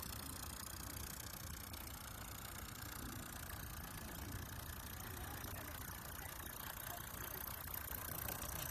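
Mini steam engine on a model boat running steadily with fast ticking, growing louder near the end as the boat comes closer.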